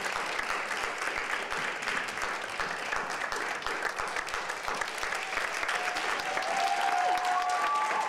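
Audience applauding steadily, a dense patter of many hands clapping, with a few cheering voices rising over it near the end.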